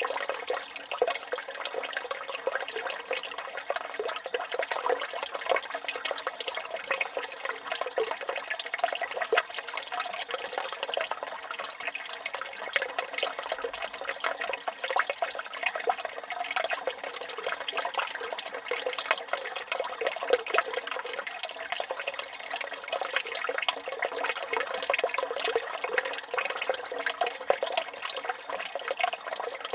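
Water from a village fountain spout pouring steadily and splashing into a stone basin.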